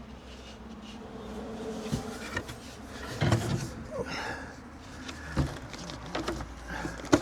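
Knocks and light scraping as a cut ceiling panel is handled and slotted into the van's roof framing, with a steady buzzing hum in the first couple of seconds and a sharp knock near the end.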